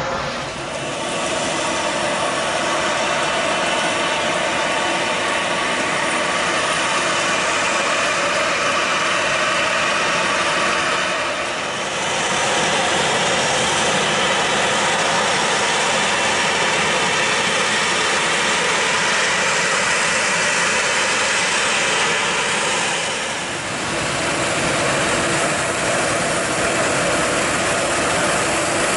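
Boeing 737's CFM56 turbofan jet engines running at taxi power, a steady whine over a dense rushing hiss, dipping briefly twice.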